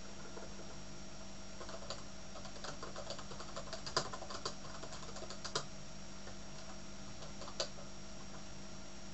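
Typing on a computer keyboard: a run of quick key clicks in the middle, then one lone keystroke near the end, over a steady background hum.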